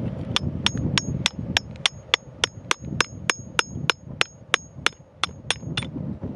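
A hammer strikes a steel chisel held against rock in steady, even blows, about three a second, each with a high metallic ring. The blows stop shortly before the end.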